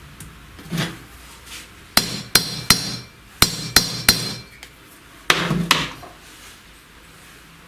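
Hammer tapping a seal-fitting mandrel to drive a valve stem seal onto its valve guide on a VAZ-21099 cylinder head: a run of about six sharp metallic taps, each with a short ring, then two duller knocks.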